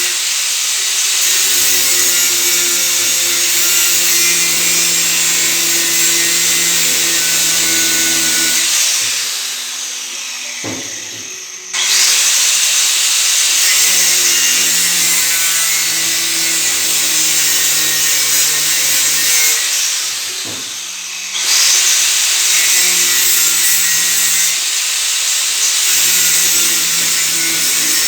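Handheld electric power tool running under load on a workpiece, a loud grinding hiss over a steady motor hum. Twice it eases off and winds down, then starts again abruptly at full speed.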